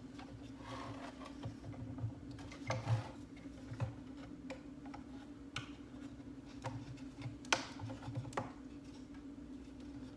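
Scattered small clicks, taps and rustles of hands working wires and plastic lamp parts during rewiring, the sharpest tap about seven and a half seconds in, over a steady low hum.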